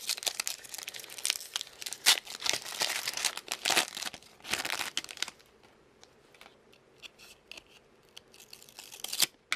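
A trading-card pack wrapper crinkling and tearing open for about the first five seconds, then fainter light ticks of handling, with a short loud crinkle near the end.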